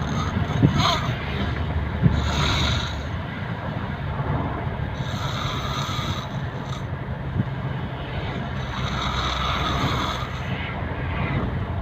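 A person snoring, with slow, repeated breaths every few seconds over a steady low rumble.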